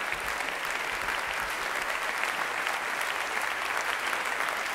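Theatre audience applauding steadily: a dense, even patter of many hands clapping.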